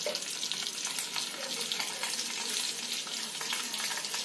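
Chana dal frying in hot oil in a steel kadai, a steady sizzle: the first stage of a tempering.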